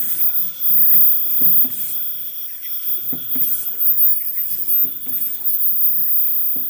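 Automatic fish-shaped mask-making machine running. A mechanical cycle repeats about every 1.7 seconds: two quick knocks and a short burst of hiss, over a steady faint whine.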